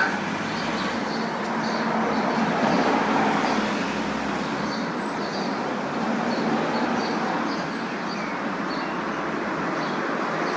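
City traffic ambience: a steady wash of road traffic noise that swells and eases gently, with scattered short high chirps over it.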